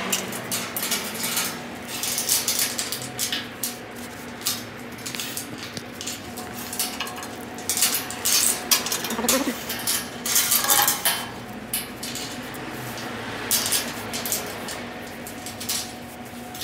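Repeated clattering and clinking of metal as a painted steel garbage bin and a metal bar cage are handled, with a steady hum underneath.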